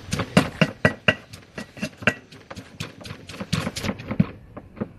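Stone pestle pounding spices in a deep stone mortar, grinding a spice paste until it is fine. A steady run of dull knocks, about four a second, stops about four seconds in.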